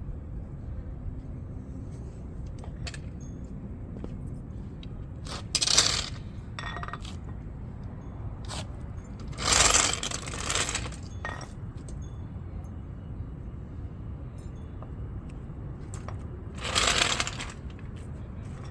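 Three short bursts of metallic scraping and clinking, with scattered light clicks in between, over a steady low rumble.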